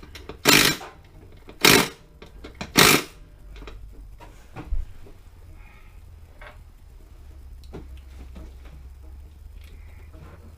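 Three loud metal clanks about a second apart, then faint scattered clinks and taps of tools and parts over a low steady hum.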